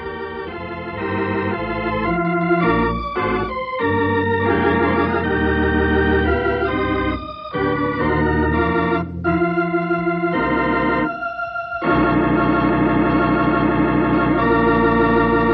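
Organ music, the program's closing theme: a run of held chords with short breaks between phrases, ending on one long sustained chord that wavers.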